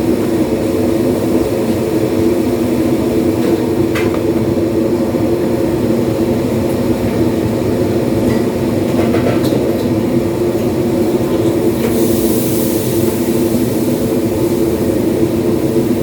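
A loud, steady mechanical drone, with a few faint clicks and knocks over it.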